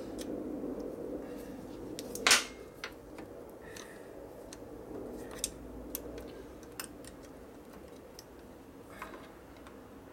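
Scattered small metallic clicks and taps of hand tools on the motorcycle's starter parts, with one louder sharp click that rings briefly about two seconds in, over a faint steady hum.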